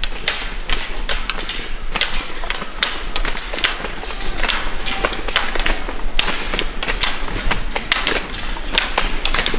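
Roller skiers skating uphill on asphalt: ski pole tips clicking sharply and irregularly on the road surface, over the hiss of roller-ski wheels rolling.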